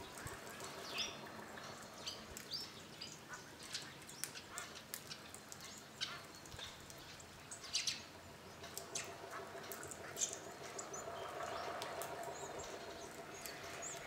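Flock of hawfinches and tree sparrows at a seed feeder: a scatter of short, sharp, high calls and chirps, coming irregularly throughout.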